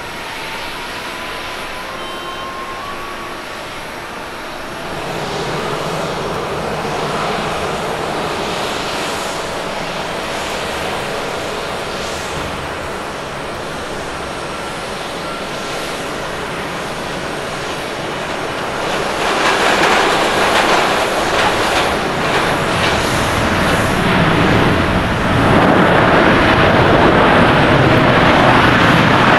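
Jet airliner engines on landing: an Airbus A330-300 rolling out, then a Boeing 787-8 coming in over a wet runway. The rushing noise grows louder over the last ten seconds as the 787 touches down and its wheels throw up spray.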